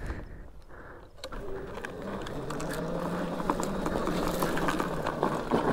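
Razor Dirt Rocket Prospec electric dirt bike on stock power pulling up a steep hill: a low, steady electric motor hum with tyre noise and scattered clicks and rattles. It starts about a second in and grows louder as the climb goes on.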